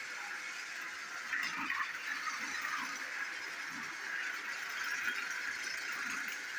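Battery-powered Plarail EH500 toy locomotive running laps on plastic Plarail track: a steady motor-and-gearbox whir with light, irregular rattling from the train on the track.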